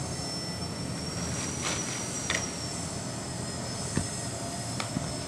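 Steady low mechanical hum with a thin, high, steady whine above it, broken by a few light taps.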